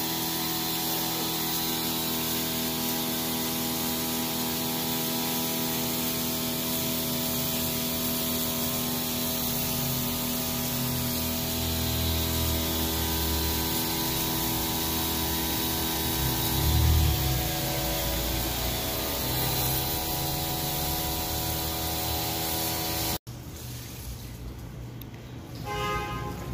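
A machine running steadily with a hiss and a humming whine made of several steady tones, with a deeper rumble swelling in the middle. It cuts off abruptly near the end.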